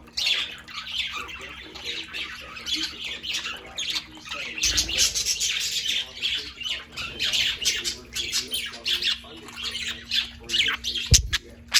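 Budgerigars chattering and squawking continuously, with a sharp knock near the end.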